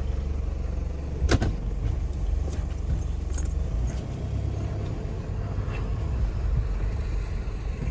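Low, steady rumble of a Toyota SUV running, heard from inside the cabin, with a sharp click about a second in and a few lighter clicks after.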